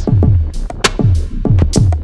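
Background music with a steady electronic drum-machine beat: deep kick drums that drop in pitch, with sharp high hits between them.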